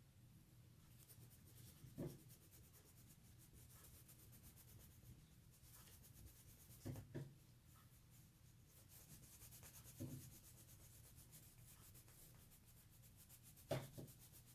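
Colour pencil shading on paper: faint, quick scratching strokes, broken by a few soft knocks, one of them a double knock.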